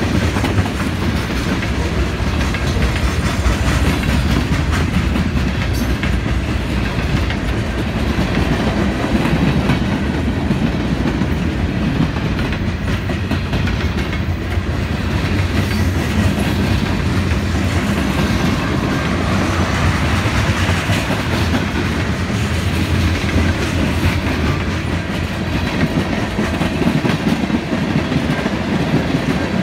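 Freight train cars, tank cars and covered hoppers, rolling steadily past close by: a continuous low rumble with the clickety-clack of steel wheels over the rail joints.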